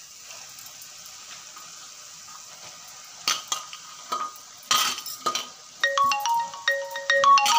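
Steel plate knocking and scraping against the rim of an aluminium kadai a few times as chopped leafy greens are tipped and brushed off it into the pan. About six seconds in, a tinkling electronic tune of bell-like notes starts up.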